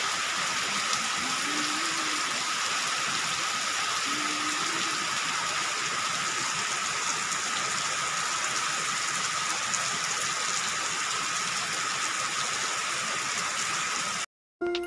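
Steady rain falling on trees and a maize field, an even hiss. A faint steady high whine runs under it, and two faint short calls come about two and four seconds in. The sound cuts off shortly before the end.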